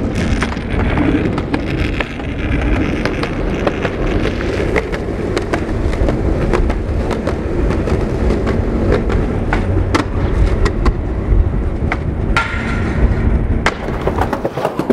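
Skateboard wheels rolling over rough asphalt: a steady low rumble with frequent small clicks and ticks from the grit.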